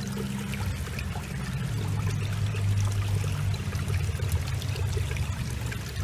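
Water pouring and splashing over a ribbed sluice mat as the mat is rinsed, with a low steady hum underneath.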